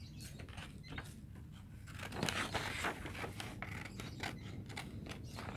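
Scissors snipping through a sheet of paper in a run of short snips.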